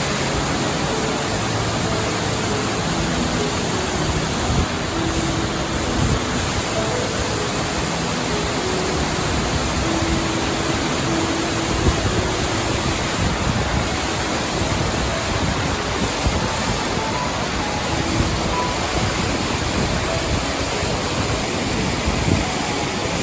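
Steady rush of a waterfall, with soft, sparse piano notes underneath.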